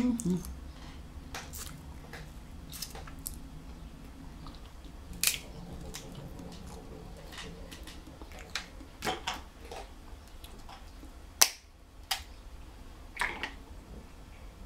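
Snow crab shells being picked apart by hand, giving scattered sharp clicks and snaps, the loudest about eleven seconds in, with soft eating sounds in between.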